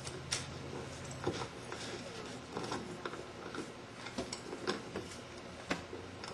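A dozen or so irregular light clicks and knocks, with a low hum that drops away about a second in.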